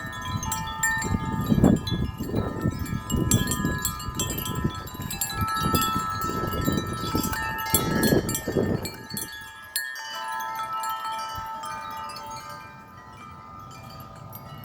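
Several metal wind chimes struck hard and continuously in a strong gusting wind: many overlapping ringing tones with a rapid clatter of strikes. Heavy wind gusts rumble over the microphone and ease off about ten seconds in, leaving the chimes ringing on more gently.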